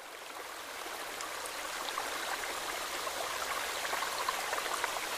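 Running water trickling steadily, with small crackles and splashes, fading in over about the first second.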